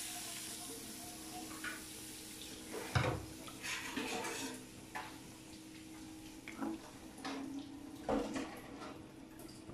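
A whisk stirring a milk-and-flour white sauce in a frying pan: soft sloshing of the liquid with scattered clicks and knocks of the whisk against the pan, the loudest about three seconds in, over a steady low hum.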